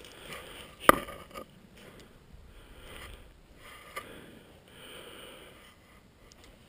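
A person breathing close to the microphone, a few slow breaths each about a second long, with one sharp click about a second in.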